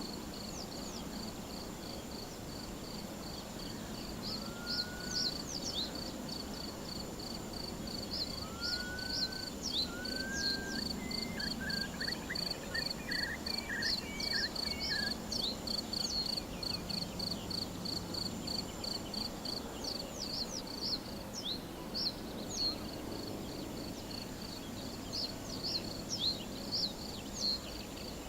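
A cricket chirping in an even pulse, about three chirps a second, over a steady hiss of meadow ambience, with birds chirping now and then and a short run of bird notes in the middle.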